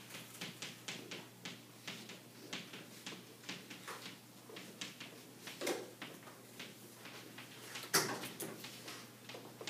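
Chalk writing on a chalkboard: a quick, irregular run of light taps and scratches, with a sharper knock about eight seconds in.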